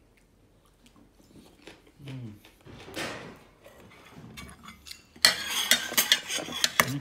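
Metal spoon scraping and clinking against a stainless steel dish of stir-fried pork mince, loud and busy from about five seconds in. Before it, a brief swish about three seconds in.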